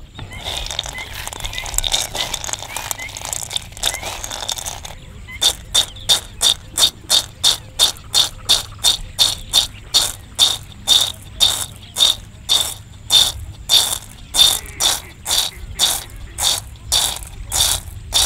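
Fried peanuts rubbed against each other in a metal bowl, a continuous rattle and scrape as the skins are loosened. About five seconds in this turns into a rhythmic clatter, a little over two a second, as the peanuts are tossed up and land back in the bowl to shake the skins off.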